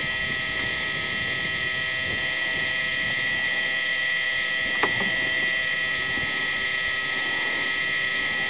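A steady, high-pitched mechanical whine over a hiss, holding several fixed pitches without change, with a single click about five seconds in.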